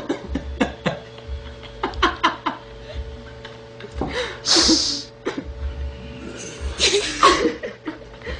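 People laughing in several short bursts, with a few sharp clicks in between.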